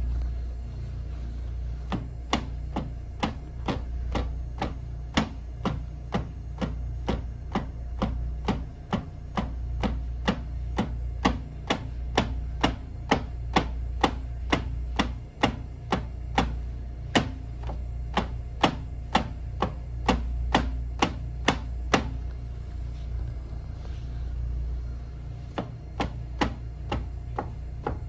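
Repeated instep kicks with a stockinged foot against the edge of a galvanized sheet-metal housing, making sharp knocks about twice a second. There is a pause of about three seconds near the end before the knocks resume. A steady low hum runs underneath.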